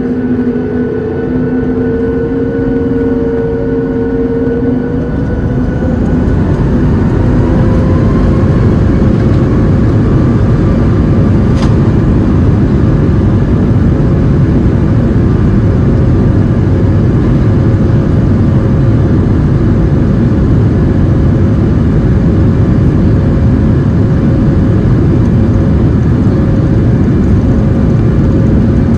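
Boeing 737 MAX 8's CFM LEAP-1B turbofan engines spooling up to takeoff thrust. The engine whine rises in pitch over the first several seconds, then a loud, steady roar holds.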